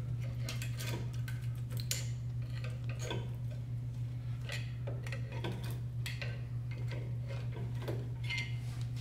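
Flat-blade screwdriver prying steel-backed rear disc brake pads out of the caliper bracket, making a string of light, irregular metal clicks and clinks over a steady low hum.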